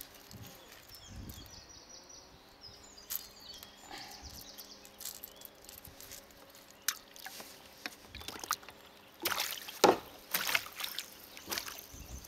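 Water sloshing against a kayak hull while fishing gear is handled on board, with scattered small clicks and knocks and a few louder splashy bursts about nine to ten seconds in.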